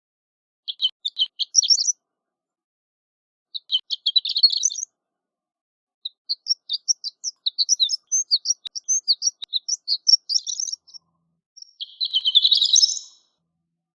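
Horned lark singing: short, high, tinkling phrases of quick notes with pauses between them, a longer run of jumbled notes in the middle and a dense rapid flourish near the end.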